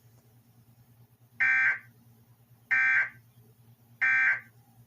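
Emergency Alert System end-of-message data signal: three short, identical bursts of buzzing digital data tone, about 1.3 seconds apart, which mark the end of the broadcast tornado warning.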